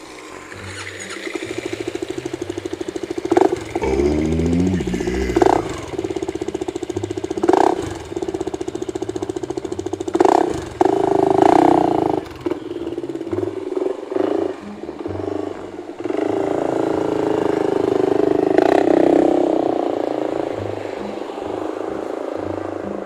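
Kymco Xciting S400i scooter's single-cylinder engine running through its gutted-and-rebuilt ('kalkal') stock muffler, with a steady pulsing idle broken by several sharp throttle blips and one longer rev about two-thirds of the way through.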